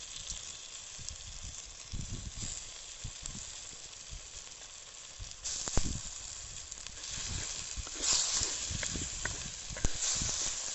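Frying sizzle from a pan as hand-torn tomatoes go into hot oil with ground thoothuvalai and spice paste. The sizzle grows louder about five and a half seconds in and again near eight and ten seconds, with a few soft knocks.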